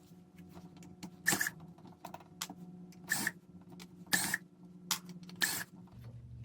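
Small clicks and scrapes of hands handling the parts of an opened electric rice cooker, four of them louder than the rest, over a faint steady hum.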